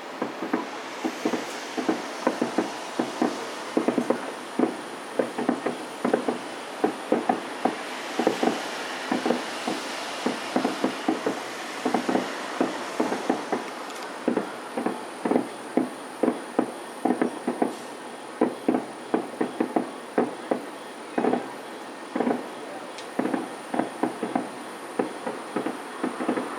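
A dense, irregular run of distant firework bursts heard from far off, several dull thuds and cracks a second with no let-up.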